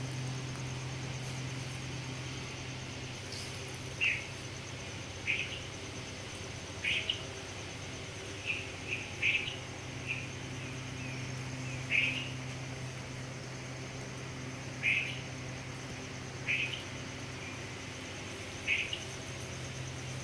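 A bird chirping in short, sharp notes, about a dozen spaced irregularly a second or two apart, over a steady low hum.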